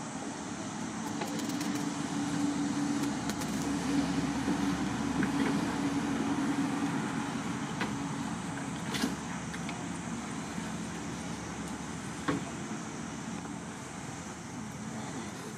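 Distant motor vehicle passing, its engine hum swelling to a peak mid-way and then fading away. Two short sharp clicks come in the second half.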